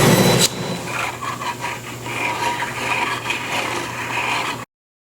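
A table saw with a dado blade runs for the first half second, then cuts off abruptly. After that, wood rubs and scrapes irregularly against wood or the saw table for about four seconds, ending in sudden silence.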